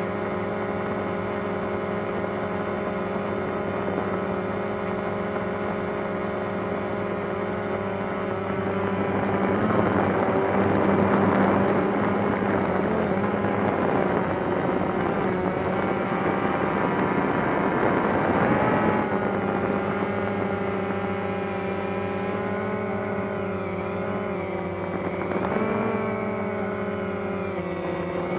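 DJI Phantom quadcopter's motors and propellers whining steadily, recorded from the drone itself. The sound gets louder and rougher for several seconds in the middle, and the pitch dips and rises again a couple of times near the end.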